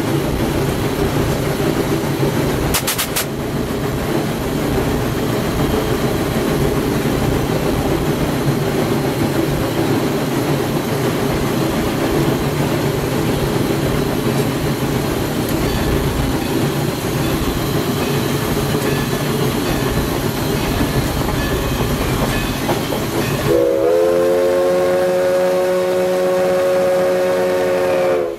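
Cab of Everett Railroad 2-6-0 steam locomotive #11 running steadily along the track. Near the end its steam whistle blows a long blast of several notes at once, breaking off briefly as the next blast begins.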